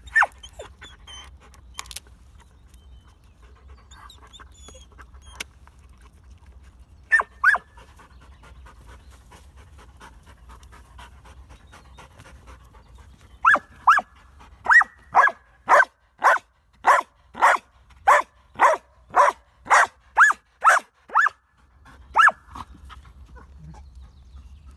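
Belgian Malinois panting hard close up while digging in loose soil: a pair of breaths about seven seconds in, then from about halfway a steady run of about two loud breaths a second for some eight seconds.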